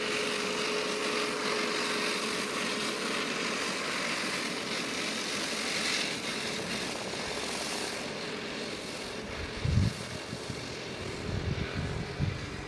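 Steady outdoor hiss with a faint steady hum in the first few seconds; from about ten seconds in, wind buffets the microphone in low gusts.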